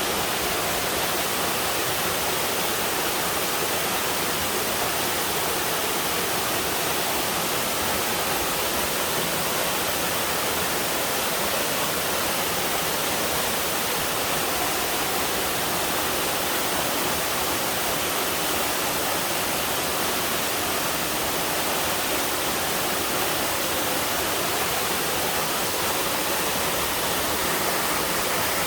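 Waterfall pouring steadily into a mountain stream: a dense, even rush of falling water with no breaks.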